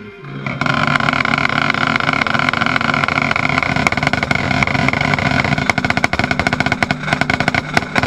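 A marching band's brass holds a loud chord over snare drum strokes, heard up close from the snare line. The strokes thicken into rapid rolls over the last couple of seconds. The band enters about half a second in and cuts off near the end.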